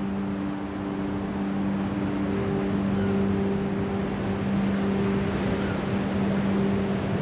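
Surf breaking on a sandy beach: a steady rushing wash of sea noise that builds slightly, with a low held note underneath and a higher note that steps up about two seconds in.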